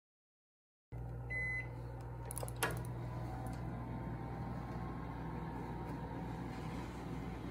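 A combination microwave oven beeps once, signalling that baking is done, followed by a sharp knock about a second later, over a steady low hum.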